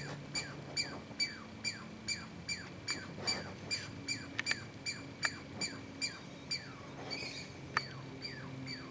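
An unidentified bird calling loudly over and over, a short note a little more than twice a second, each one dropping in pitch. The uploader takes it for either a distress call or a call to keep other birds away.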